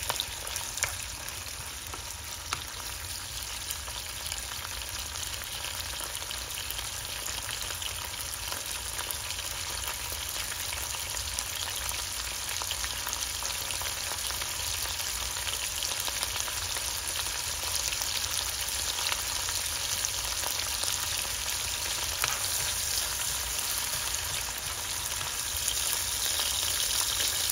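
Sliced onion and green and red bell peppers sizzling in avocado oil in a nonstick frying pan, stirred now and then with a silicone spoon. It is a steady frying hiss full of small crackles, getting a little louder near the end.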